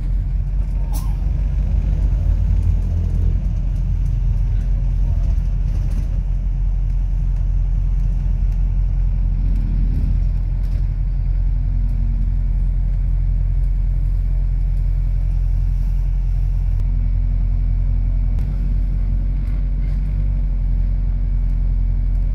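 Steady low rumble of a double-decker bus's engine and running gear, heard from inside on the upper deck while it drives along, with a faint steady hum joining in near the end.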